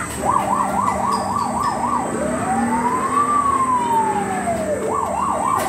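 Electronic siren sound effect from a children's play fire truck's button panel. It gives a fast warbling yelp, then one slow rising-and-falling wail, then the fast yelp again.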